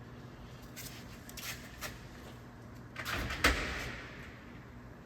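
Hands working with parts and tools around the engine bay. There are a few light clicks, then a rustling clatter with one sharp knock about three and a half seconds in, over a faint steady low hum.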